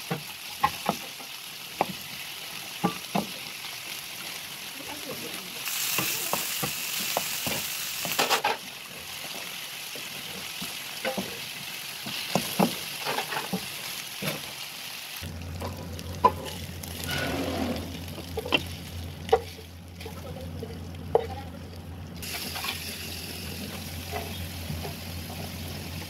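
Diced chicken sizzling as it fries in a nonstick pan, with a spatula stirring and clicking against the pan. The sizzle swells for a couple of seconds early on, and a low steady hum comes in about halfway through.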